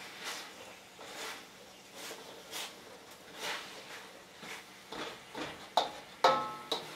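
A spatula stirring and turning mustard cabbage in a steel wok: a run of scraping swishes, roughly one a second. Near the end come two sharp metallic knocks on the wok, the second the loudest and ringing on briefly.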